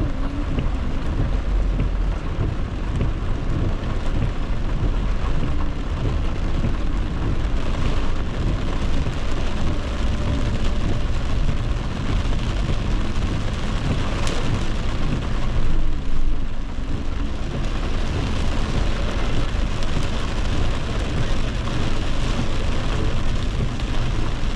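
Heavy rain pelting a car's roof and windshield, heard from inside the moving car, over a steady low rumble of the car on the wet road.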